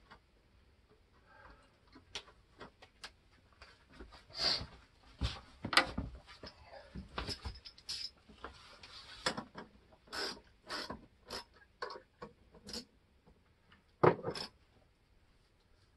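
Irregular clicks, taps and light knocks from hand work at a refrigerator and its surrounding cabinet, with the sharpest knock about 14 seconds in.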